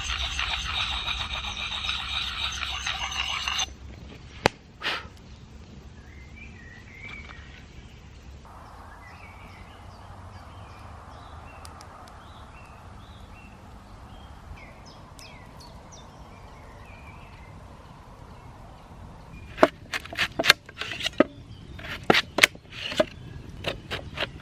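A loud rushing noise for the first few seconds that cuts off abruptly, then faint birdsong in woodland, and in the last few seconds a quick run of sharp cracks and snaps.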